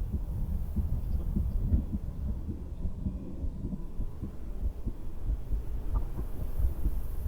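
A heartbeat heard through a stethoscope: low, muffled thumps within a dense low rumble.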